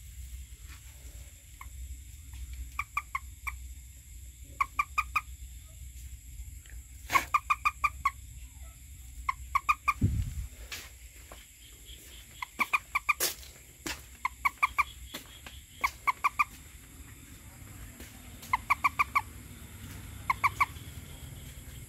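A frog calling at night: short, rapid trains of three to six clucking pulses, repeated every second or two. A low thud comes about halfway through.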